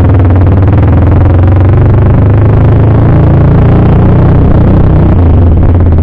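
CFMoto 300SR's single-cylinder engine running through an Akrapovic full-system exhaust, a loud, deep note that rises a little in pitch and then eases back about five seconds in.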